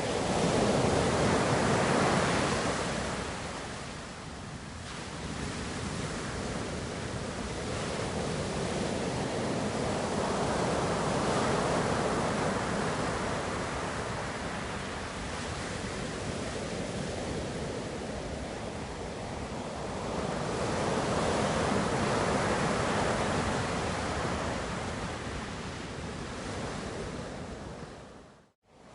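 Ocean waves breaking and washing on shore, the surf swelling and ebbing in slow surges about every ten seconds. The sound drops out for a moment near the end.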